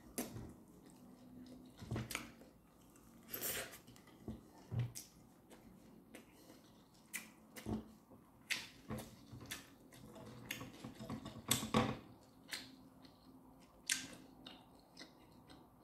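A person chewing and biting into a lettuce wrap of bacon and tomato, with irregular sharp mouth smacks and crunches.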